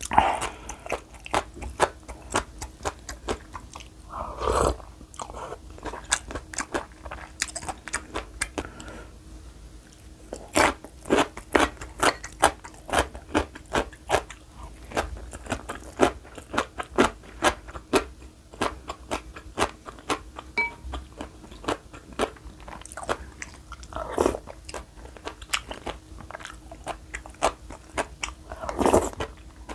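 Close-miked eating: steady chewing with many wet mouth clicks, and slurps of spicy soup from a spoon at the start, about four seconds in, at about 24 seconds and near the end.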